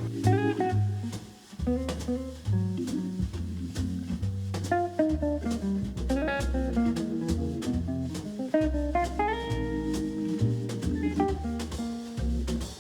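Background music: a jazzy tune with plucked guitar, bass and drum kit.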